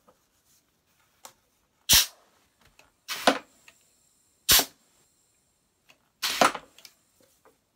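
Pneumatic bath bomb press cycling on a large round mold: two sharp metallic knocks alternate with two short blasts of air hiss as the valve lever is worked and the piston drives down and returns.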